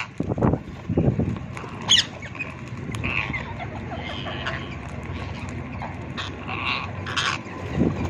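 A flock of rose-ringed parakeets squawking while they feed, with short high screeches scattered through and a sharp loud call about two seconds in. A few low thumps come in the first second or so.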